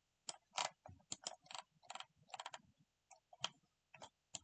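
Faint, irregular clicking and ticking from a computer mouse, with short runs of quick ticks like its scroll wheel being turned notch by notch.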